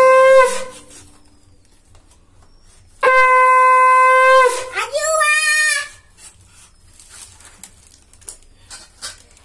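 Conch shell (shankha) blown by mouth, signalling the start of a Shiva puja: the end of one steady blast about half a second in, then after a pause a second long steady blast about three seconds in that breaks into a wavering, warbling note and stops around six seconds in. Faint small clicks and knocks of items on the shrine follow.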